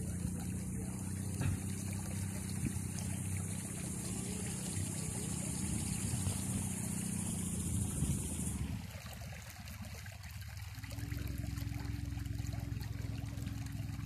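Small boat's motor running steadily at low speed, with water trickling along the hull. A high steady hiss cuts off suddenly about nine seconds in, the hum dips, and a steadier hum returns about two seconds later.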